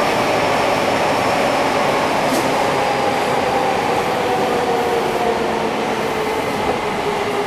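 Fukuoka City Subway 2000 series train running underground, heard from inside the car: a steady rumble of wheels and track with the traction motor and IGBT-VVVF inverter tones slowly falling in pitch as the train slows.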